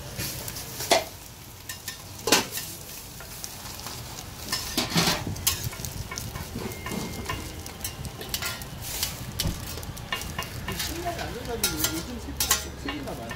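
Metal spatula scraping and clacking against a flat-top griddle as omelet-wrapped gimbap rolls are turned and pressed, over a low sizzle of egg frying in oil. A handful of sharp scrapes stand out, spread irregularly through.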